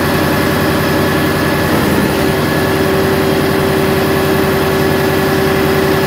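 Concrete mixer truck and frog concrete pump running as concrete is discharged into the pump hopper: a steady, loud engine drone with a held mid-pitched tone over it.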